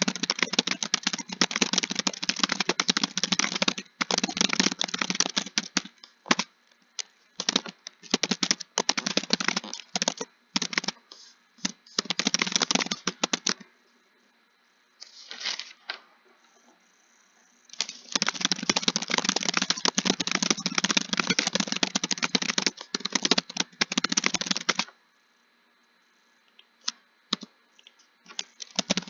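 Fast typing on a computer keyboard: rapid runs of key clicks that stop for a few seconds twice, with a few single keystrokes near the end.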